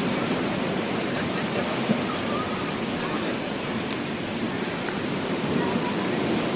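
Beach ambience: a steady wash of ocean surf, with insects trilling continuously high above it in a fast, even pulse.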